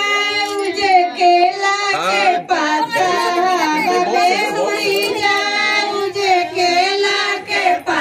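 Several women singing a traditional Hindu wedding folk song (geet) together, their voices overlapping in long held notes.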